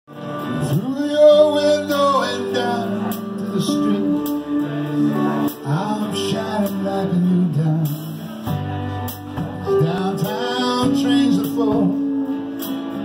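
Live rock band playing: acoustic and electric guitars, keyboard, bass guitar and drum kit, with a male lead vocal singing over them.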